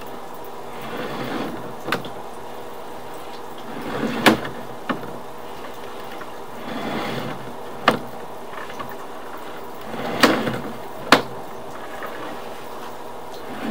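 Sewer inspection camera's push cable being pulled back out of the pipe in repeated hand pulls: a swell of rubbing about every three seconds, with sharp clicks and knocks in between.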